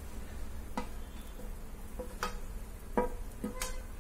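A spatula tapping and scraping against a steel plate and a nonstick frying pan as grated fresh coconut is knocked into the pan: about four sharp clicks, some with a short metallic ring, over a low steady hum.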